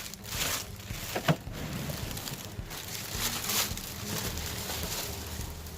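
Packaging being handled while a new drain-cleaner drum is unboxed: paper and plastic crinkling and rustling, with one sharp knock about a second in.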